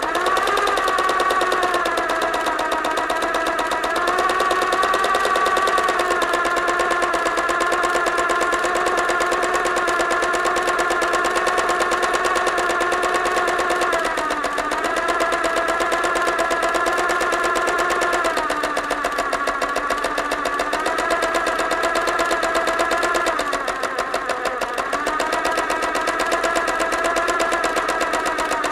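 Electric sewing machine running fast: a steady motor whine with a rapid, even needle clatter. It spins up at the start and slows briefly a few times in the second half before picking up speed again.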